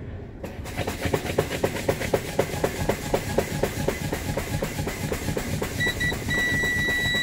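Truck air brakes being fanned: the brake pedal is pumped rapidly with the engine off, each stroke releasing a short puff of air, about five a second. About six seconds in, the low air pressure warning buzzer starts, a steady high tone that stutters once at first, signalling that system air pressure has dropped to the warning point above 60 psi.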